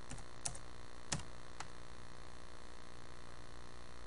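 A few computer keyboard keystrokes, about four sharp clicks in the first second and a half, then only a steady electrical hum.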